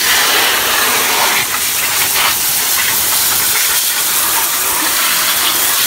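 Steady stream of water from a garden hose, not a pressure washer, hissing and splashing over a Jeep Wrangler's engine bay as it is rinsed down.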